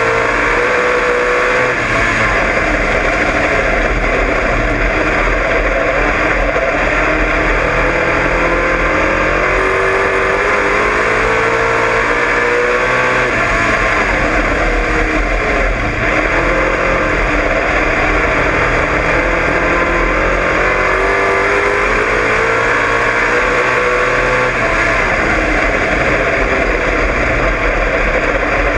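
Dirt-track race car's engine at racing speed, heard from inside the car, its note climbing and then dropping back again and again through the laps.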